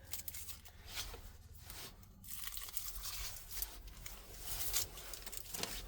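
Paper fast-food packaging being handled: rustling, crinkling and tearing in short irregular bursts.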